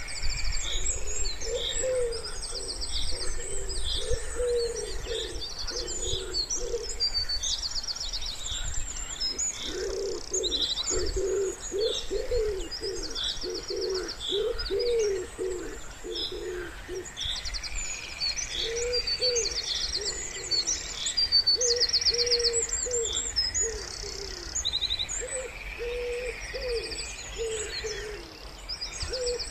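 Wood pigeon cooing in repeated low phrases, with short pauses between runs of coos. Small songbirds chirp and trill over it the whole time.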